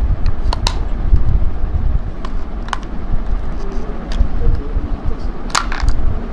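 A wireless microphone's bodypack transmitter being handled while its batteries are changed: a few sharp plastic clicks, over a loud, steady low rumble.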